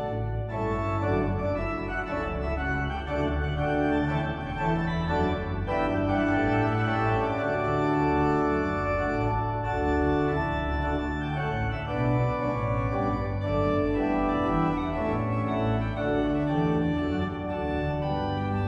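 Sampled baroque pipe organ (a Hauptwerk sample set of a Schnitger organ) played through a digital organ console, sounding continuously with sustained chords and changing bass notes under a moving melody line.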